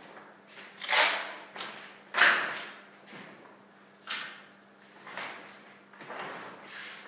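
Large hanging sheets of paper rustling and scraping as they are worked by hand: a string of separate sharp swishes, about six of them, the loudest about one and two seconds in.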